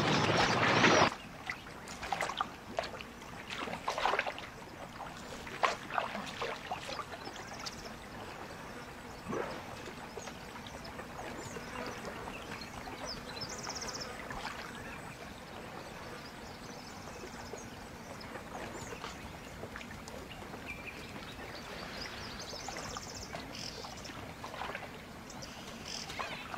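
A loud noise cuts off about a second in, followed by steady water lapping and trickling with scattered small splashes in the first several seconds and a few faint high chirps.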